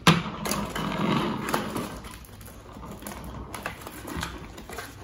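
Handling noise from a plastic toy truck and its cardboard packaging on a tabletop: a sharp knock at the start, then rustling, scraping and scattered clicks that grow quieter after about two seconds.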